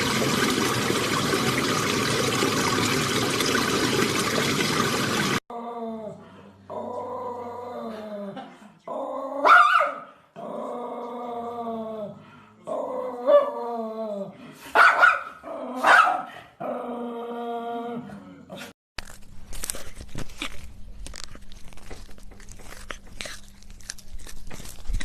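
A dog vocalising in a run of drawn-out calls that fall in pitch, with a few sharp, louder yelps among them. It is preceded by a loud, dense noise and followed by scattered clicks and knocks.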